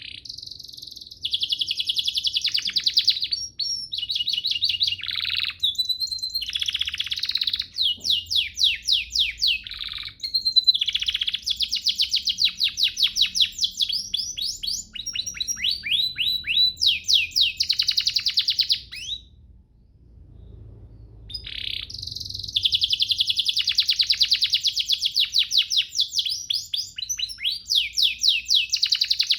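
Domestic canary singing long, fast trills and rolls, with a short break about two-thirds of the way through before the song resumes.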